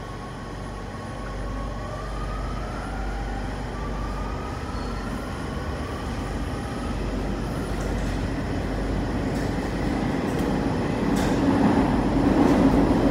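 Rome Metro train heard from inside the car as it gets under way: the electric traction motors whine in slowly rising tones over a low rumble, and the running noise grows steadily louder. A few sharp wheel-on-rail clicks come near the end.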